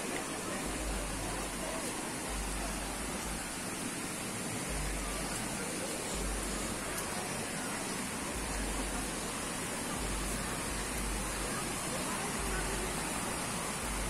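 Steady rushing of a waterfall and its river, with low rumbles coming and going underneath.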